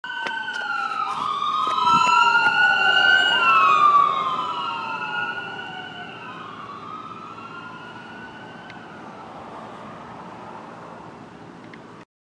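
Ambulance siren wailing, its slow rising-and-falling tones overlapping. It is loudest about two to four seconds in, fades as the ambulance moves away, and cuts off near the end.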